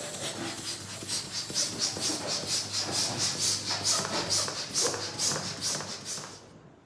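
Plastic hand balloon pump being worked in quick strokes to inflate a latex balloon: a rhythmic hiss of air with each stroke, stopping shortly before the end.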